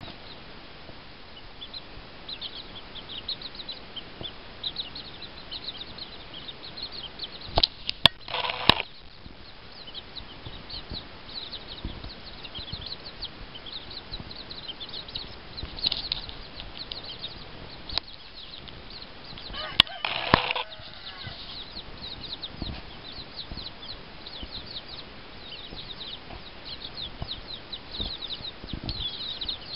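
Bantam chicks peeping constantly with short, high, falling calls. The bantam hen clucks louder and lower twice, about eight seconds and twenty seconds in. A few sharp clicks are heard around those calls.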